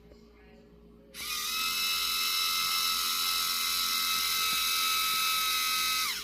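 Compressed air blasting out of a compressor's air outlet through a remotely opened valve: a loud, high-pitched hiss with a steady whistle. It starts suddenly about a second in and cuts off about five seconds later, dropping slightly in pitch as the valve shuts.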